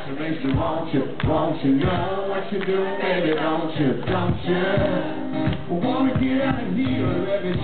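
Live country band playing: a male lead singer sings over strummed acoustic guitar and the band, with a steady drum beat.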